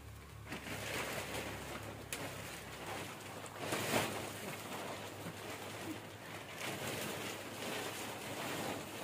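Bare feet treading and scuffing over damp soil as it is levelled, a continuous rustling scrape with a louder scuff about four seconds in.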